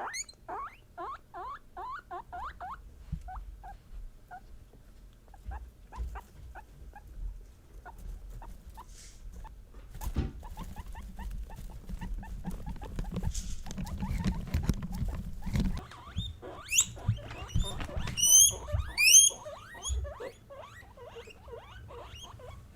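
Guinea pigs calling: a quick run of short, rising chirp-like calls at first, then scattered quieter calls over a low rustling noise, and loud, high rising squeals repeated several times a little past the middle.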